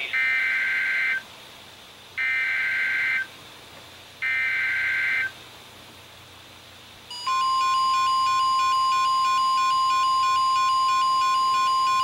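Weather radio sounding an Emergency Alert System activation for a Flood Warning: three one-second bursts of warbling SAME header data about two seconds apart, then, about seven seconds in, the steady 1050 Hz NOAA warning alarm tone begins, with a higher, rapidly alternating beep pattern over it.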